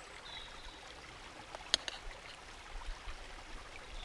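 A river flowing steadily nearby, a constant rushing hiss. About a second and a half in, a sharp double click, a metal spoon knocking against the camping pot, with a couple of softer knocks a second later.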